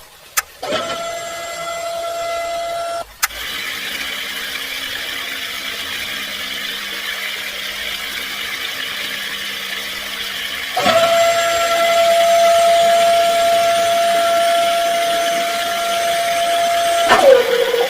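Small DC hobby motors of a homemade mini drilling rig running at steady speed. A high, even whine starts and cuts off after about two and a half seconds, and a lower hum takes over. The whine returns louder about eleven seconds in, then drops in pitch as it winds down and stops near the end.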